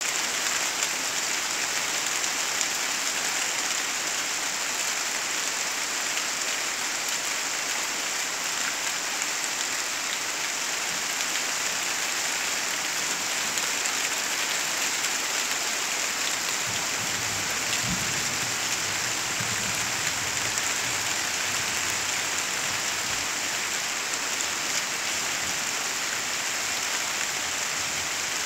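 Heavy rain falling steadily onto dense leafy vegetation: an even, continuous hiss of drops.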